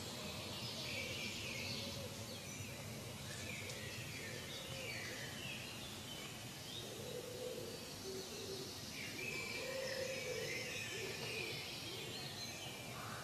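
Faint outdoor ambience: a steady background hiss with scattered small bird chirps.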